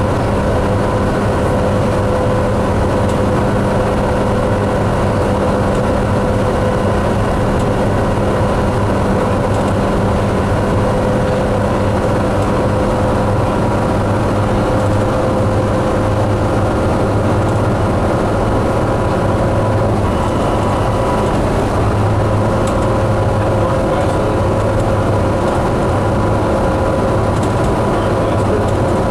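A 2005 New Flyer D60LF articulated diesel bus with a Caterpillar engine, running steadily under way with road noise. The engine and drivetrain note holds level, neither rising nor falling.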